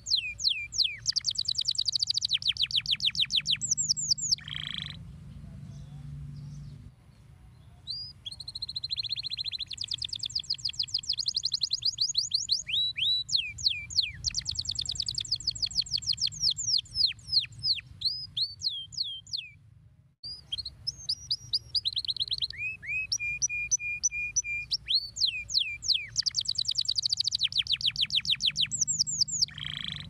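Domestic canary singing: long, fast trills of rapidly repeated high down-slurred notes, in several phrases with a brief pause about a quarter of the way in and another about two-thirds through.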